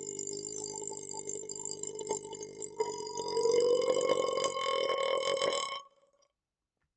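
A man's long, drawn-out burp from chugging carbonated Pepsi, pitched and held. About three seconds in it gets louder and rises slightly in pitch, then it stops abruptly shortly before six seconds in.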